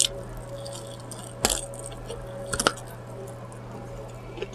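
Close-miked eating of crispy fried chicken: two sharp crunchy bites, one about one and a half seconds in and another about a second later, with softer mouth sounds between, over a steady low hum.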